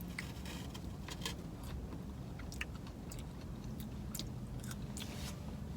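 Close-miked chewing, with irregular wet clicks and crackles of mouth and food, over a low steady rumble.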